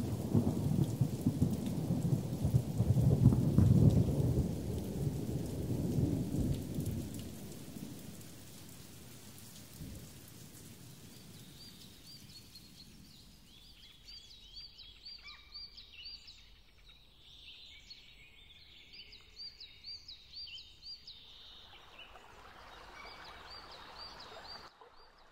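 Thunder rumbling over steady rain, the rumble loudest a few seconds in and fading away by about eight seconds. Later, birds chirp in quick runs of short, high, repeated notes.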